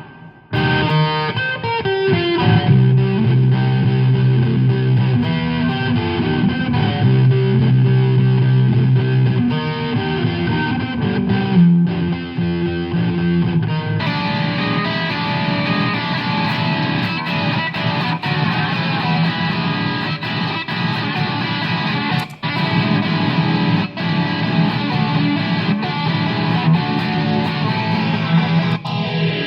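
Electric guitar played with distortion: held notes and chords at first, turning denser and brighter about halfway through.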